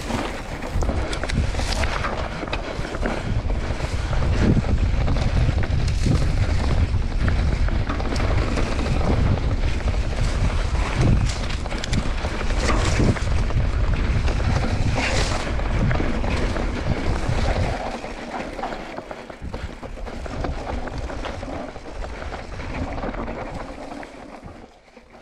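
Wind buffeting a mountain bike rider's action-camera microphone over the rumble of tyres on a dry dirt trail, with scattered clicks and rattles from the bike over bumps. The low rush eases about two-thirds of the way in and fades out at the end.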